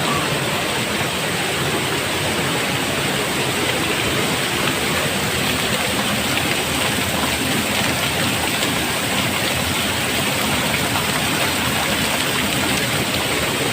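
Waterfall with its steady, even rush of falling water.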